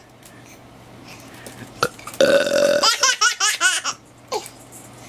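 About two seconds in, an adult lets out a deliberate burp, and a baby breaks into laughter straight after it. A short falling squeal from the baby follows near the end.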